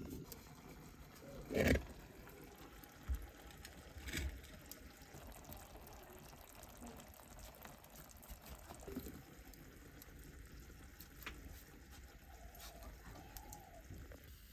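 Wood cooking fire crackling faintly, with a few soft knocks, the loudest about a second and a half in.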